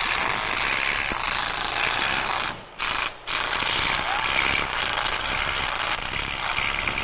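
Loud, harsh, steady machine noise, cutting out twice briefly about three seconds in.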